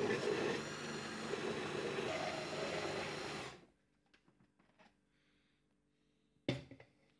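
Countertop electric blender running for about three and a half seconds, its motor whining over the churn of a liquid oat-and-banana mix, then switched off. A single sharp knock comes near the end.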